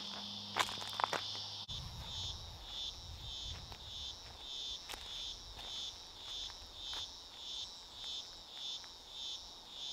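Cicadas calling in chorus, a high drone that pulses about twice a second. In the first couple of seconds, footsteps on river stones sound over a steadier cicada drone.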